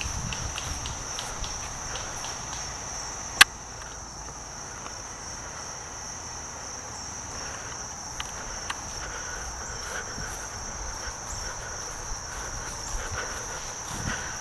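Steady high-pitched insect chorus, with one sharp snap about three and a half seconds in and a few faint ticks later.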